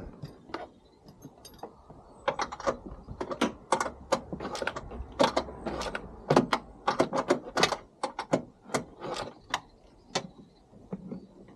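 Irregular runs of sharp metallic clicks and clanks from tools and hinge hardware as a car door's hinge bolts are worked loose.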